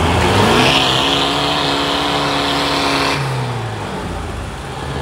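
Mahindra Thar engine revving up hard and holding high revs for about two seconds, then dropping back down, as it strains on a tow strap to drag a stuck 4x4 out of the mud.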